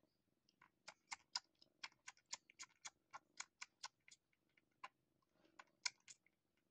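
Nursing kitten suckling at its mother cat's teat, making a quick run of quiet, sharp clicking smacks about four a second, with a short pause and a few more clicks near the end.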